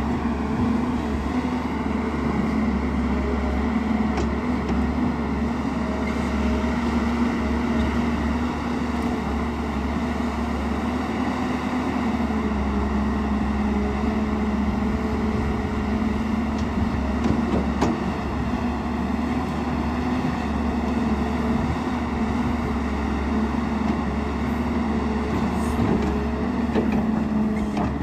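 JCB NXT 205 tracked excavator's diesel engine running steadily under load while the machine digs a trench in dry, stony earth, a constant drone with small shifts in pitch and a few faint knocks.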